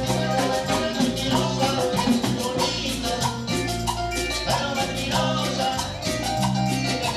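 Latin dance music, an instrumental passage of a cumbia song with a steady beat, bass and percussion.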